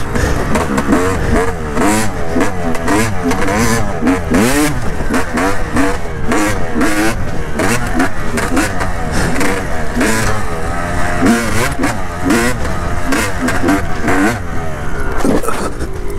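Yamaha YZ250 two-stroke dirt bike engine revving hard and dropping off again and again, its pitch rising and falling every second or so as the rider works the throttle. Wind rush and knocks on the bike-mounted microphone run under it.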